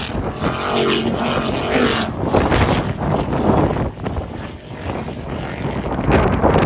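Distant offshore racing powerboat engines running at speed as the boats round a turn, with gusty wind buffeting the microphone. A steady engine tone is clearest between about half a second and two seconds in.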